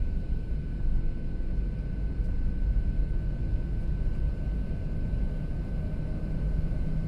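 Cabin noise of a Boeing 737-700 taxiing after landing, its CFM56-7B engines at idle: a steady low rumble with a thin, steady high whine over it.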